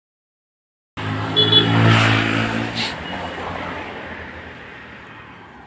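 A motor vehicle's engine running, starting abruptly about a second in, loudest a second later and then fading steadily.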